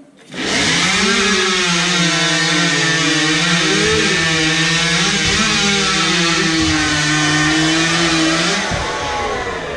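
Two-stroke chainsaws running at full throttle and cutting through log blocks in a timed lumberjack chainsaw race. The engine note is steady and high, wavering a little under load, and it drops off near the end.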